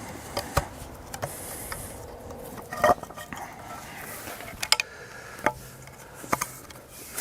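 Scattered clinks and knocks of tree-climbing gear being handled, with the loudest knock about three seconds in.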